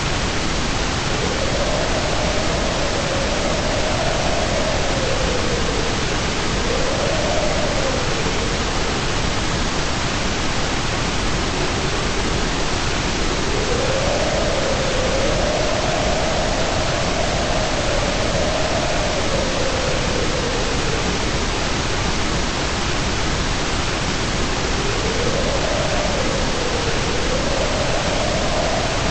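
Steady white noise hissing evenly with no change in level. A faint tone wavers slowly up and down beneath it, coming and going every several seconds.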